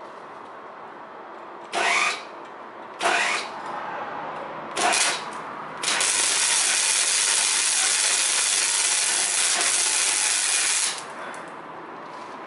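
Wire-feed (MIG) welding arc on the joint between a new flexible exhaust pipe section and the exhaust pipe. There are three short bursts about two, three and five seconds in, then one steady weld run of about five seconds that stops about a second before the end.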